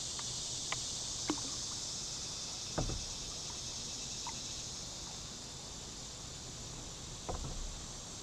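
Steady high-pitched outdoor hiss of a creek setting, with a few light ticks and two dull knocks against a kayak, about three seconds in and near the end.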